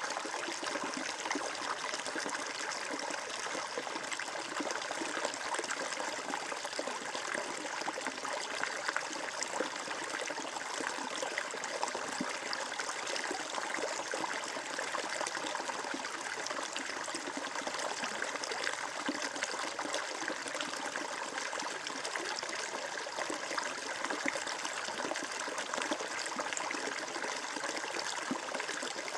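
Water flowing and trickling steadily, as in a small stream or brook.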